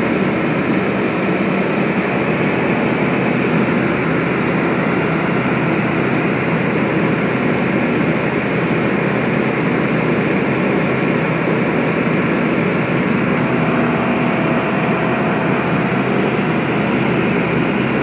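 Small plane's engine and propeller running steadily in flight, a loud, even noise heard from inside the cabin.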